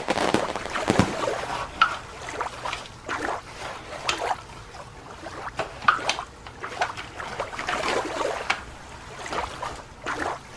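Water splashing and trickling in small irregular splashes and drips, as toy sea animals are moved about in it.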